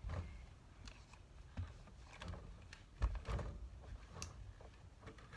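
Scattered light clicks and knocks of objects being handled, with the sharpest knock about three seconds in.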